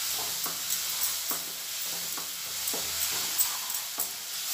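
Tomato-puree masala sizzling in ghee in a nonstick kadhai as a wooden spatula stirs and scrapes through it, a soft scrape about twice a second over a steady sizzle. The masala is being fried until the ghee separates.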